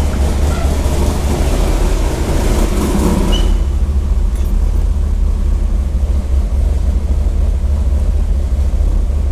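LS3 V8 in a Nissan 350Z idling loudly with the exhaust cutout open, a deep steady rumble from the freshly re-gasketed headers. A hiss over the rumble falls away about three and a half seconds in.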